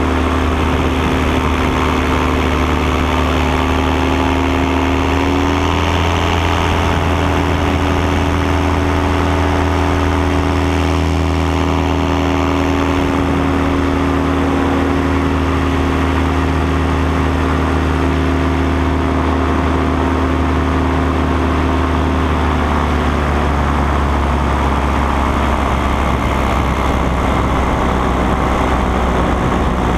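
Paramotor engine and propeller running steadily in flight. The note rises slightly about five seconds in and becomes less even after about 23 seconds.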